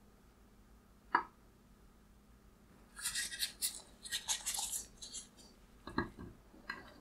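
Plastic headlight housing parts handled with gloved hands: a sharp click about a second in, scratchy rubbing and scraping from about three to five seconds in, then a couple of knocks near the end as the part is set down on the wooden bench.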